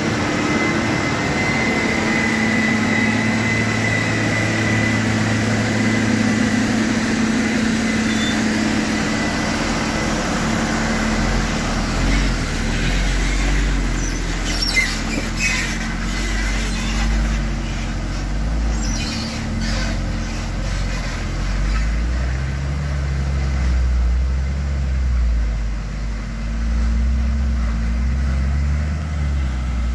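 Heavy diesel engines of a wheel loader, tractor and loaded truck running hard while the truck is towed out of mud, with a steady high whine over the engine note for the first several seconds. The sound then turns to a deeper, pulsing truck-engine rumble as the truck rolls past and pulls away, with a brief sharp knock about halfway through.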